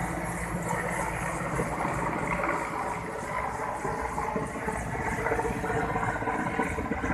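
Military helicopter flying overhead: the steady beat of its rotor blades over the drone of its engines.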